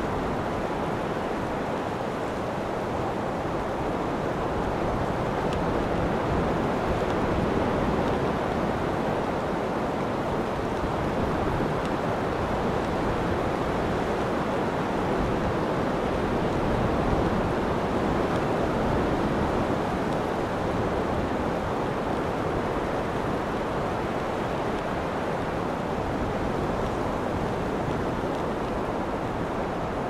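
Strong tropical storm wind rushing steadily, swelling slightly in gusts, with wind buffeting the microphone in a low rumble and surf mixed into the noise.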